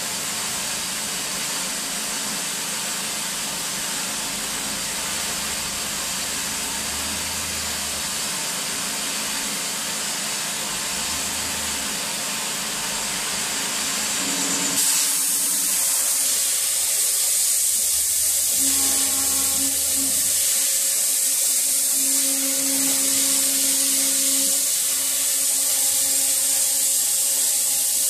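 Oxy-fuel cutting torch on a CNC table: the preheat flame hisses steadily, then about halfway through the cutting oxygen is switched on and it changes suddenly to a louder, higher hiss as the jet pierces and cuts the steel plate.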